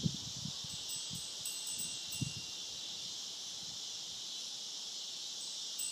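Steady high-pitched insect chorus droning without a break, with a few soft low buffets of wind on the microphone in the first couple of seconds.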